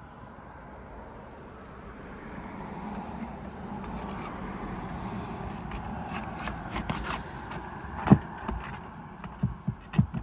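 Steel flat bar scraping and prying under brittle asphalt shingles to pull roofing nails, with light clicks and a sharp metal knock about eight seconds in, then a few more knocks near the end. Under it runs a rushing noise that swells and then fades.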